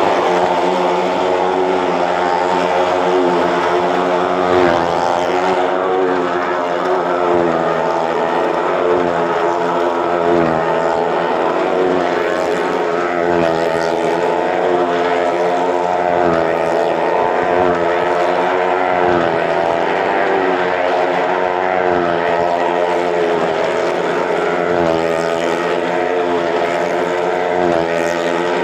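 Motorcycle engine running steadily, its pitch wavering slightly up and down as the throttle is eased, with no rider circling the wall.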